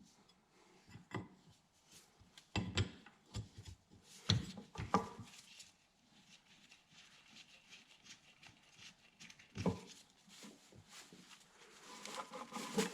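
Scattered light knocks, clicks and rubbing of hand work on a tractor's hoses and fittings, with a few bunched together a few seconds in and single ones later.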